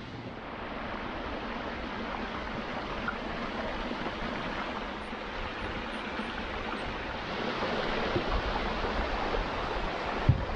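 A mountain brook rushing over rocks: a steady noise of running water that grows a little louder about two-thirds of the way through, with a single thump near the end.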